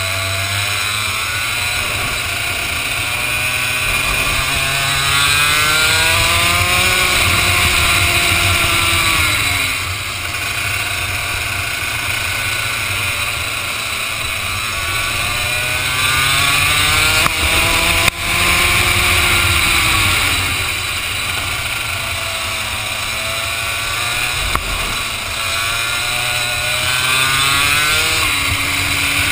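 ROK two-stroke kart engine on track, its pitch climbing for several seconds as it accelerates out of each corner and dropping as the throttle is lifted for the next, three times over. A steady rushing hiss runs under it, and there is one sharp knock partway through.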